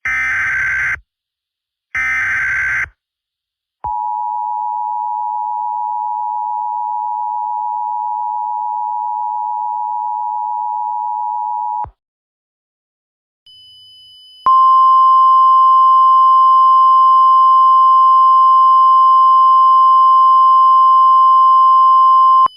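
Emergency Alert System alert signals: two one-second bursts of screechy SAME header data, then the two-tone attention signal held steady for about eight seconds. After a short gap, a single steady tone of the NOAA Weather Radio warning alarm sounds louder for about eight more seconds and cuts off.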